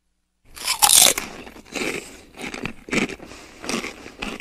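A crunchy bite sound effect, loudest about a second in, followed by crunching chews about once a second.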